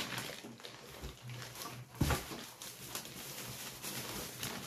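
Plastic packing bag crinkling and rustling against a cardboard box as a boxed 88-key digital keyboard is gripped and shifted, with a dull knock about two seconds in.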